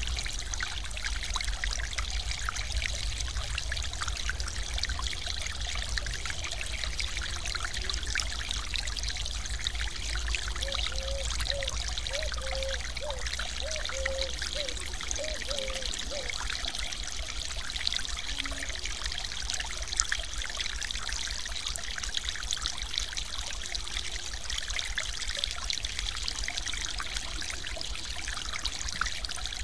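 Stream water pouring over a low ledge in a thin sheet: a steady splashing rush with a low rumble underneath.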